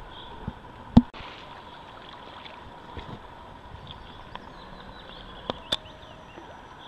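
A steady outdoor hiss with a loud knock about a second in and two sharp clicks close together near the end.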